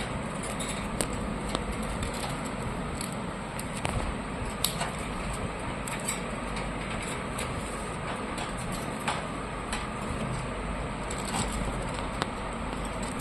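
Parakeets moving about a wire cage: irregular sharp clicks and taps of beaks and claws on the bars and perch, over a steady background hum.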